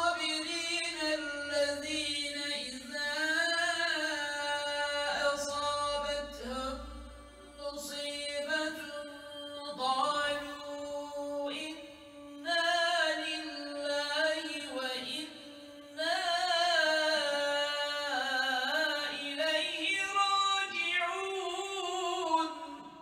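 A man's solo unaccompanied voice chanting Islamic religious recitation in long, ornamented melismatic phrases, with short breath pauses between phrases and a fade at the end.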